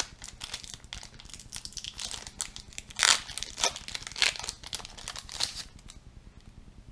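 Yu-Gi-Oh! booster pack wrapper crinkling as it is pulled open by hand, in a run of sharp crackles that stop about two-thirds of the way through.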